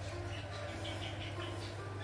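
Faint background music, short notes at changing pitches, over a steady low hum.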